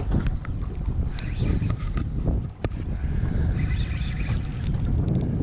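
A fishing reel ratcheting under the load of a heavy fish on the line, over a steady low rumble of wind on the microphone.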